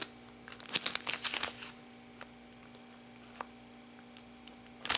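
Plastic package of soft-plastic fishing baits crinkling as it is handled, a flurry of crackles in the first second and a half, a few faint ticks after, and a louder crinkle at the end.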